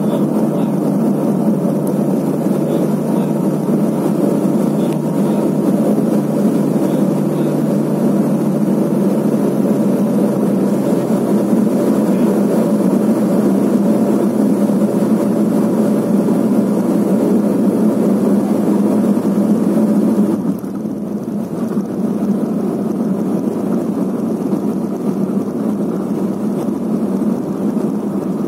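Cabin noise of a Let L-410 UVP-E20's twin turboprop engines and propellers through the landing, from low final approach to the runway roll: a loud, steady drone that drops suddenly and turns duller about twenty seconds in.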